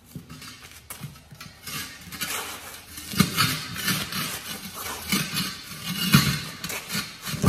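A rubber tractor-tread mower tire being forced down over a steel wheel rim by hand and foot: irregular rubbing, knocking and clattering, with a heavier thump about three seconds in and another about six seconds in.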